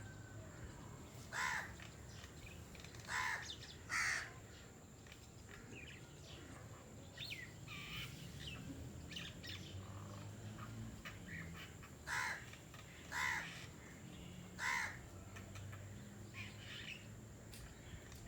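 Six short, harsh animal sounds, three in the first four seconds and three more about twelve to fifteen seconds in, with fainter chirps between them.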